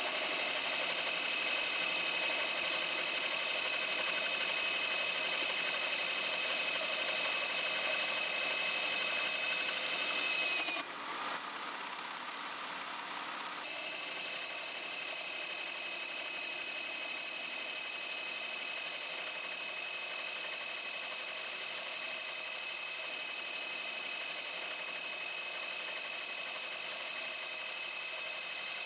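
Milwaukee Ice Hardened and Lenox hole saws cutting through metal plate in drill presses: a steady high-pitched squeal over machine noise. About eleven seconds in, the squeal dips in pitch and drops out as the faster saw breaks through, and the sound gets quieter. A few seconds later a similar squeal returns and runs on steadily.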